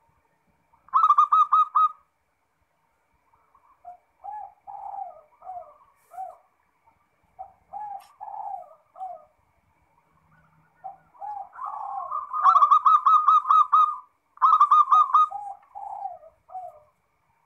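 Zebra dove (perkutut) cooing in bouts: a quick run of high staccato notes about a second in, a softer stretch of lower coos in the middle, and a longer phrase near the end that runs through rapid high notes and drops into lower coos.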